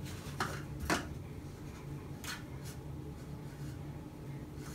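Soft rustling and a few light taps as a baby plays with toilet paper and its cardboard tube on a wall-mounted holder, over a steady low hum.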